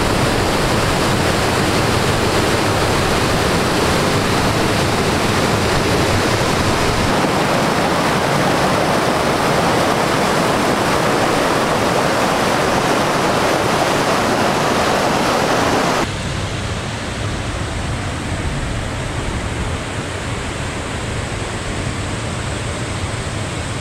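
Rain-fed waterfall, water falling fast down about 100 feet of rocky slope, making a steady rushing noise; it drops somewhat quieter about two-thirds of the way through.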